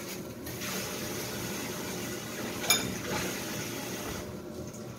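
A steady low hiss, with one sharp clink of a spoon against a bowl a little past the middle.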